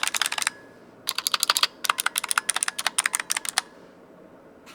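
Fast typing on a Razer Huntsman Mini's purple clicky optical switches: sharp, crisp key clicks in three quick runs, stopping about three and a half seconds in.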